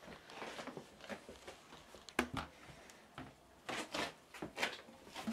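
Light knocks and taps of a white plastic bucket and a stainless-steel honey sieve being handled, with a sharp click about two seconds in and a cluster of knocks near the end.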